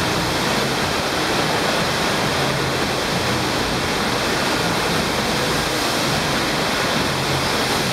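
Steady rush of water from a sheet-wave surf simulator, a thin sheet of pumped water jetting continuously up a padded slope.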